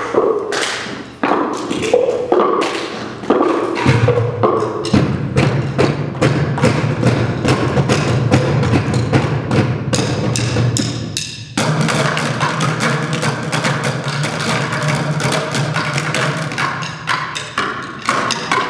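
Ensemble bucket drumming: upturned plastic buckets struck with drumsticks in a fast, dense rhythm of hits, with a short break about eleven seconds in before the playing resumes.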